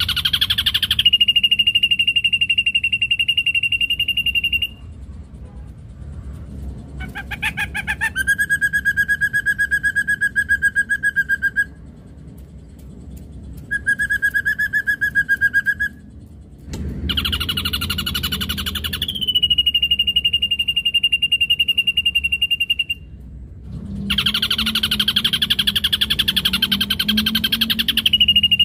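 Ashy drongo singing. It alternates harsh, rapid rattling phrases with long, steady, pure whistled notes, each held for two to four seconds, some high and some lower-pitched.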